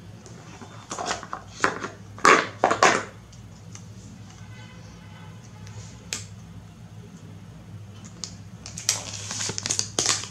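Crinkling and rustling of a phone's clear plastic wrap and box as they are handled, in a few loud bursts about a second or two in and again near the end. A single sharp click comes midway, over a steady low hum.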